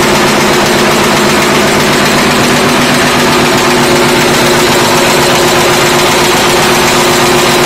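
Automatic wire nail making machine running, its heading hammer and cutters striking the wire in a fast, even clatter over a steady motor hum.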